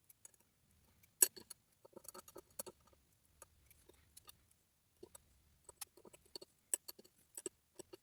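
A disc detainer padlock being taken apart by hand: its small metal discs and parts clicking and clinking irregularly, with one sharper click about a second in.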